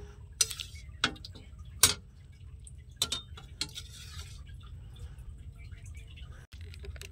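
A metal serving spoon clinks and scrapes against a metal kadai and steel plates as chicken curry is dished out onto rice. There are about five sharp clinks in the first four seconds, over a steady low rumble.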